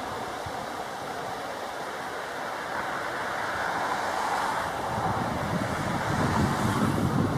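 Steady outdoor noise, a wash of wind and distant water or traffic, with wind buffeting the microphone in gusts that grow stronger near the end.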